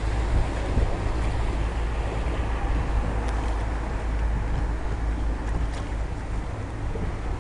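Steady wind rumble buffeting the camera microphone over a wash of open water, aboard a gondola out on a canal.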